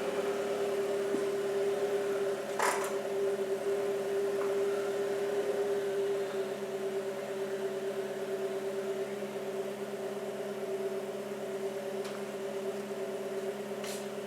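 A steady mechanical hum holding a few fixed tones, its lowest part dropping away about six seconds in, with one short click about three seconds in.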